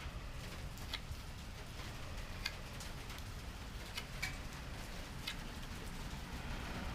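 Rain falling steadily, with sharp single ticks at uneven gaps of about one to two seconds.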